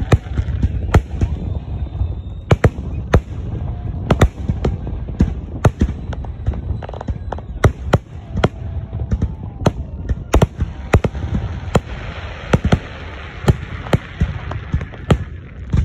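Fireworks display: many sharp bangs and crackling pops going off in quick, irregular succession over a continuous low rumble.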